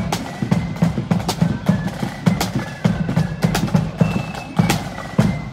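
Marching band drums, snare drums and bass drums, beating out a march rhythm, with sharp hits falling several times a second over steady low drum strokes.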